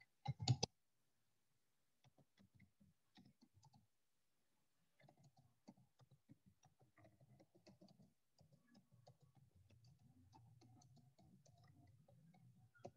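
Faint computer keyboard typing: scattered key clicks, with a couple of louder clicks right at the start.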